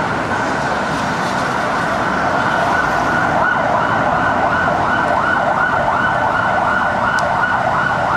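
Emergency-vehicle siren on a city street, switching about two and a half seconds in to a fast yelp of quickly repeating rising sweeps, about two or three a second, over low traffic rumble.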